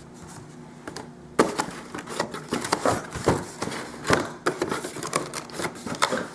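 Cardboard box and packing material being rummaged through and handled: a brief quiet, then about a second in a run of irregular rustles, scrapes and light knocks.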